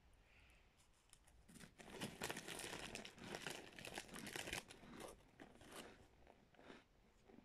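Close-up chewing of a bitten-off mouthful of packed cornstarch: a dense run of crunching and crackling starts about a second and a half in and eases off after about six seconds.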